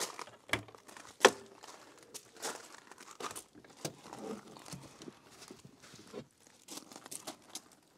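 Footsteps crunching on gravel and a car door latch clicking as the door is opened, the sharpest click about a second in, followed by scattered rustles and clicks as the front seat is tipped forward.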